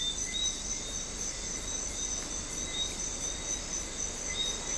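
Night-time rainforest insect chorus: several insects trilling steadily at different high pitches over a soft, even hiss.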